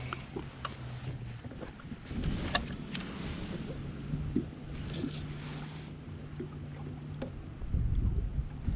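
A small boat rocking on choppy water in gusty wind: scattered light taps and splashes against the hull and a steady low hum that drops out and comes back. Gusts of wind rumble on the microphone, heaviest near the end.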